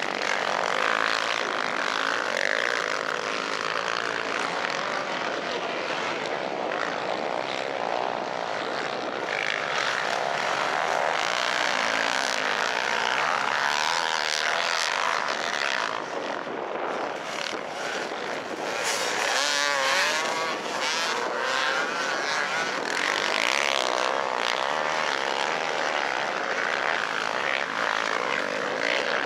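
Enduro motorcycle engines running hard on the race circuit, several at once, their pitch climbing and falling as riders rev, shift and pass.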